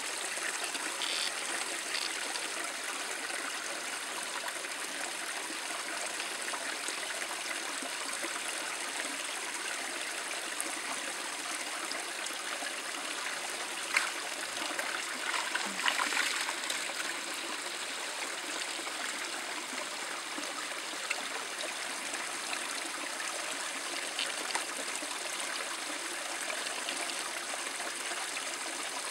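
Running water, a steady stream or trickle, with one sharp click about halfway through and a brief louder splash soon after.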